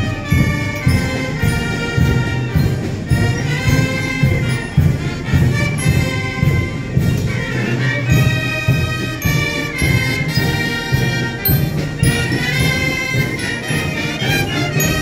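Procession brass band playing a march, with held brass notes over a steady low drum beat.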